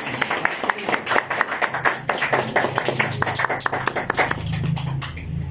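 A small group of people clapping, the applause dying away about four and a half seconds in and leaving a low steady hum.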